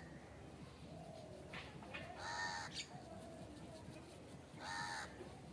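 An animal calling twice, about two and a half seconds apart, each a harsh, drawn-out call of about half a second.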